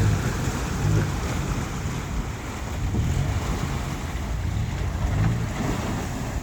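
River water rushing and churning at a flooded off-road crossing, with wind buffeting the microphone. A low vehicle engine rumble swells and fades underneath a few times.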